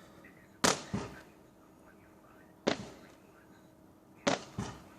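Fireworks going off: five sharp bangs, each dying away quickly, coming as a close pair under a second in, a single bang near the middle, and another close pair near the end.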